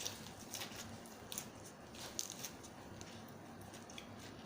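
Faint, scattered crunches and clicks of someone eating a spicy Thai seafood salad.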